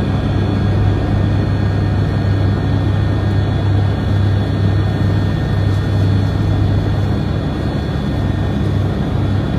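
Helicopter running steadily: a loud, even low drone with thin, steady high-pitched whines over it.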